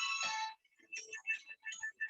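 Sound-healing music of sustained ringing tones that cuts off abruptly about half a second in, followed by a sparse run of short, high chiming notes.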